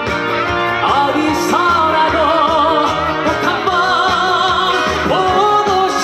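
Live song performance through the stage PA: a melody of long held notes with vibrato over the band backing.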